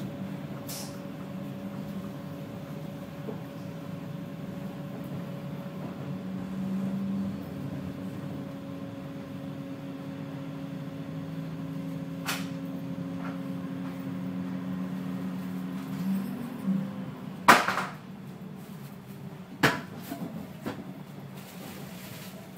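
Steady running noise and hum of a moving passenger train heard from inside the carriage. A few sharp knocks cut through it, the loudest about three-quarters of the way in.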